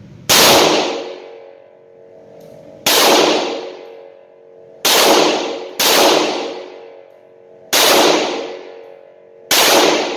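Six slow-fire 9mm shots from a Rock Island AL9.0 double-action revolver, spaced one to two seconds apart with two in quicker succession mid-way. Each report echoes off the concrete walls of an indoor range.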